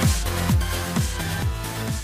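Electronic dance music: a steady kick drum about two beats a second under held synth chords.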